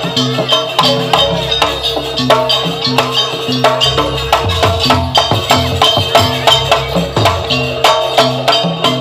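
Live jaranan barong ensemble music: drums and struck tuned percussion keeping a brisk, steady beat over a held tone.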